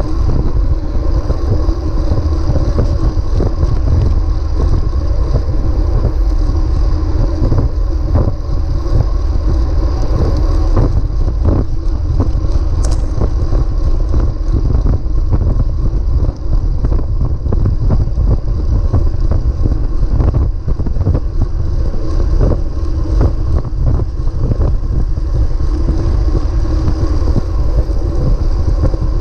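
Wind buffeting the microphone of a bike-mounted camera riding at speed, over a steady rush of tyre and road noise. A short click about 13 seconds in.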